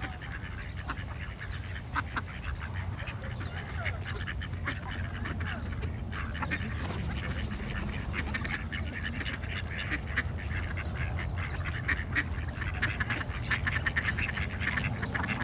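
A group of ducks quacking over and over, many short calls overlapping and growing busier towards the end, over a steady low rumble.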